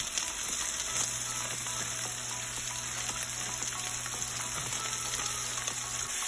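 Buttermilk-and-flour-coated okra slices frying in hot oil in a cast-iron skillet, a steady sizzle with small crackles.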